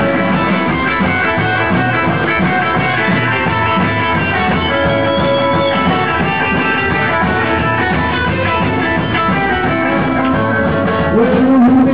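Live rockabilly band playing: electric guitar, upright bass and drums in a steady, loud rhythm.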